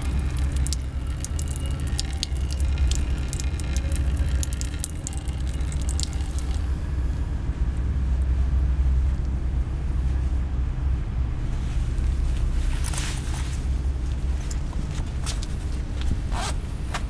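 Urine splashing and dripping onto a board and a tarred roof, a patter of small wet spatters for the first several seconds, then tailing off. A steady low rumble runs underneath, with a few short rustling noises near the end.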